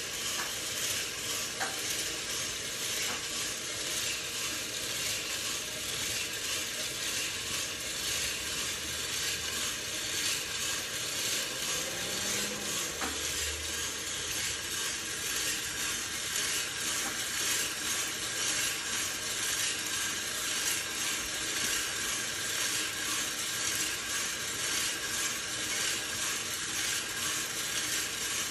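Hottop drum coffee roaster running: pale, still unroasted-looking coffee beans tumble in the turning drum with a steady rustling hiss, early in the roast before any cracking.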